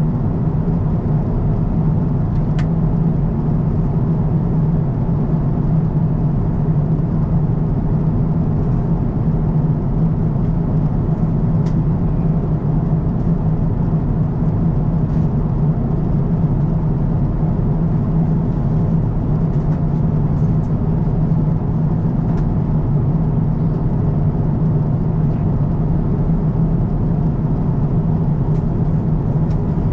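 Steady cabin noise of an Airbus A350-1000 airliner in flight: an even rush of airflow and engine noise with a constant low hum, and a couple of faint ticks.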